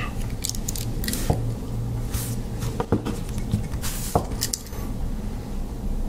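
Victorinox Compact Swiss Army knife being handled, with a scatter of light metal clicks and scrapes as its tools are moved.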